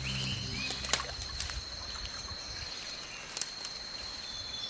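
Rainforest ambience: a steady high-pitched insect drone, with a few short chirps near the start and scattered soft clicks. A low held music tone fades out about a second in.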